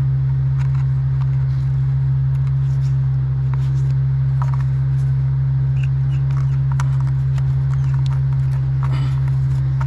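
Small clicks and scrapes of pliers working spark plug wire boots loose, over a loud steady low hum from an unseen machine.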